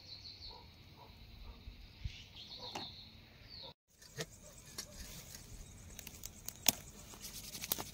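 Faint high chirping in the background, then, after a brief dropout, a small twig campfire crackling with scattered sharp pops. The loudest pop comes a little before the end.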